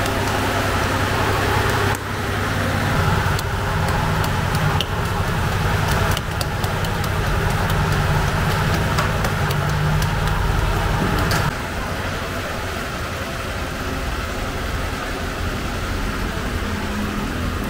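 Steady low hum of bakery machinery, with scattered clicks and knocks of the work. About two-thirds of the way through it cuts off suddenly to a quieter, even street background.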